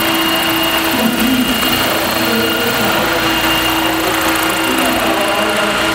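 Large scale RC model helicopter of a Bell 206 flying, with a steady drone from its rotor and drive and a thin, steady high whine above it.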